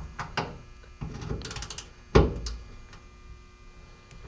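Metal fuel filler neck and tank hardware being worked into place: light rattling and scraping, then one sharp knock about two seconds in, over a faint shop hum.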